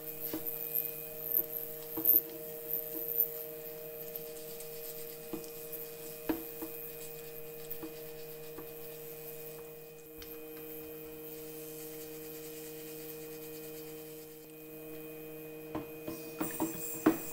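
Ultrasonic parts cleaner running with a steady electrical hum, while the aluminium cylinder head of a Honda CL125 is scrubbed with a wire brush, with scattered clicks and knocks as it is handled. Near the end there is a cluster of knocks as the head is set back into the tank.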